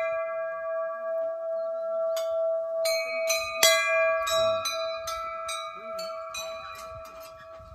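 Hanging brass temple bell rung by hand, its clapper striking the rim. Its long, steady ring carries through. About two seconds in comes a run of about a dozen quick strikes, roughly three a second.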